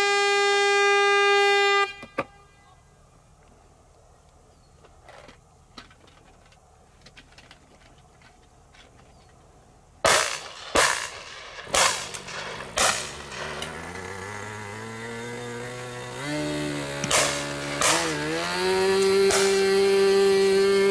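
A steady pitched tone for about two seconds, then a quiet stretch with faint distant pops. About ten seconds in, four shotgun shots crack out over roughly three seconds, followed by a pitched drone that rises steadily and then holds.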